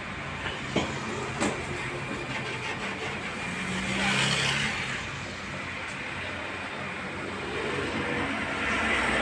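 A metal wok knocks against a gas stove's burner grate a couple of times about a second in as it is set down, over a steady rushing noise.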